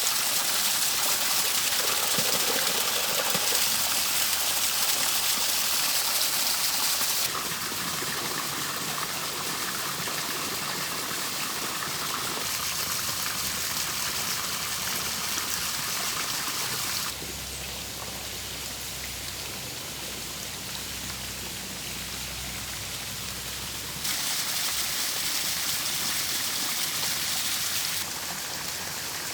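Water running and splashing steadily from spouts and a small stream. Its loudness and tone shift abruptly several times as the view moves between different water features.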